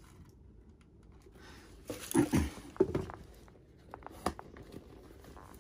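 A leather boot being handled and set down in a cardboard shoebox lined with tissue paper. A few loud knocks and rustles come about two seconds in, and a single sharp knock just after four seconds.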